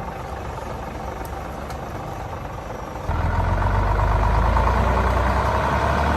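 Heavy truck engine running steadily, with a sudden step up to a much louder, deeper rumble about three seconds in.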